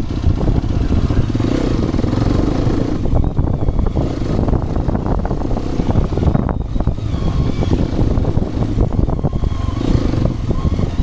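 Hero XPulse 210 motorcycle's single-cylinder engine running while the bike is ridden over a rough off-road trail, a steady heavy low rumble broken by many small jolts.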